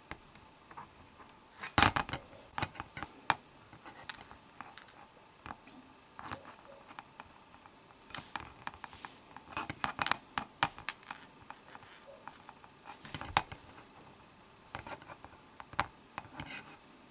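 Hands handling a small black plastic chalk-line reel spool while tying fishing line onto it: scattered light clicks, taps and rustles, with the sharpest clicks about two seconds in and again past thirteen seconds.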